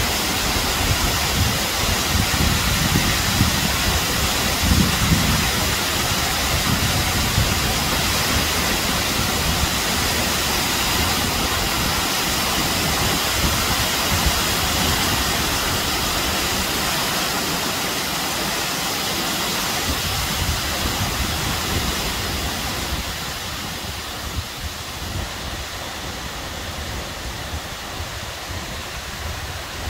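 Acquafraggia waterfall's water falling and splashing onto rocks in a steady rush, with a deeper rumble in the first several seconds. It is a little softer near the end.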